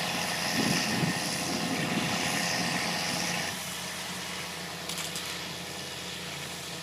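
Heavy diesel tractor engine running steadily under tile-plowing work, with a rougher low noise over the first three seconds; about three and a half seconds in the sound drops in level.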